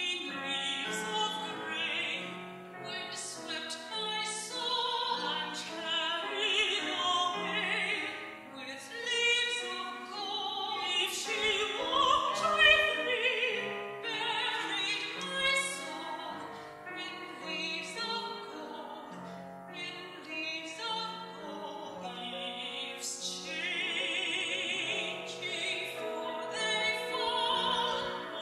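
Operatic soprano singing with wide vibrato over piano accompaniment. It is played from an old cassette tape, so the sound is slightly wobbly and uneven.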